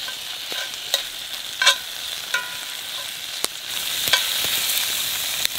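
Bacon sizzling in a frying pan held over a campfire, a steady hiss with a few sharp clicks. The sizzle grows louder about three and a half seconds in.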